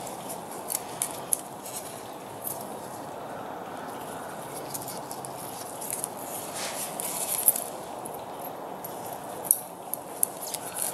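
Small clicks and rustles of gloved hands handling air-compressor valve plates and their steel reed valves, tying the reeds in place with elastic cord, over a steady background noise. The sharpest click comes about seven and a half seconds in.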